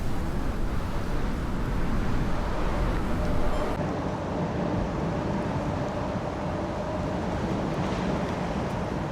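Strong wind buffeting a small camera microphone: a dense, low rumble with hiss over it. About four seconds in, the highest part of the hiss cuts off abruptly.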